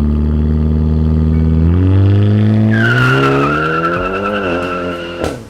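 Hyundai Elantra N's turbocharged 2.0-litre four-cylinder running loud through a titanium axle-back exhaust, its pitch rising about two seconds in. From about three seconds in a drive tire squeals steadily as it spins, and both cut off suddenly near the end.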